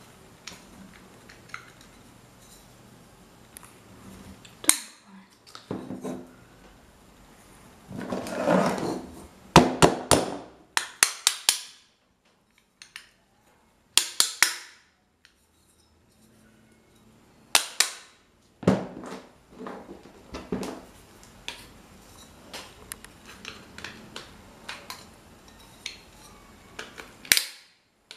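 Cast metal parts of an electric fan motor being handled: the housing and end cover clinking and knocking against each other and the bench, in scattered sharp clicks. About eight seconds in there is a second of scraping, followed by a quick run of clicks, and a loud knock comes near the end.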